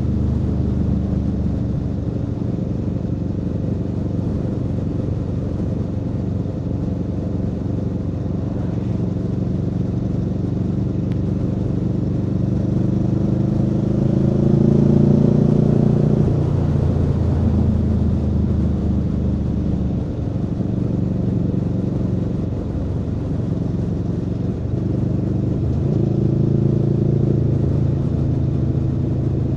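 Aprilia Tuono V4 motorcycle's V4 engine running under way, heard from the rider's seat. Its revs climb about halfway through and then fall back sharply, with smaller rises and falls in pitch later as the throttle and gears change.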